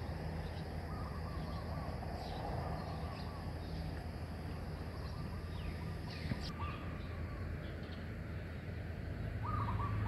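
Birds calling: a short call of a few notes comes back about three times, with scattered higher chirps, over a steady low rumble.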